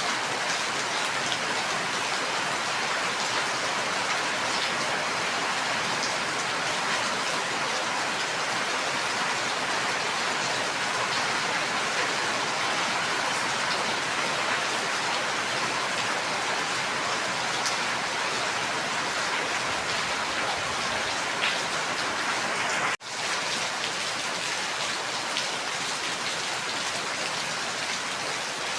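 Steady heavy rain falling, a dense even hiss with scattered individual drop ticks. About three-quarters of the way through it cuts out for an instant and resumes.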